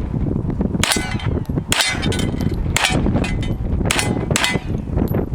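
Hi-Point 995 9mm carbine firing five shots at an uneven pace, about a second apart, the last two in quick succession.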